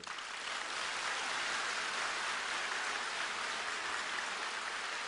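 A large audience applauding: dense, steady clapping that starts suddenly and holds at an even level.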